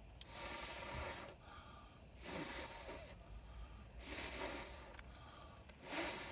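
Someone blowing hard on the dying campfire's embers to revive it: four breathy rushes of air, each about a second long.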